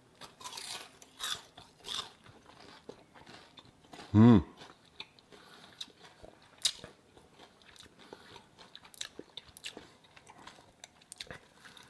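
Crisp pan-fried kingfish skin being bitten and chewed close to the microphone: scattered sharp crunches and cracks, densest in the first couple of seconds. A short hummed 'mm' about four seconds in is the loudest moment.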